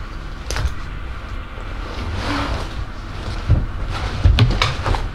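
Snowmobile engine idling as it warms up, a low rumble, with several sharp knocks and bangs over it, the loudest near the end.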